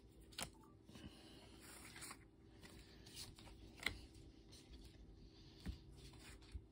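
Faint, scattered soft taps and rustles of Pokémon trading cards being handled and laid on a table, the clearest tick a little under four seconds in.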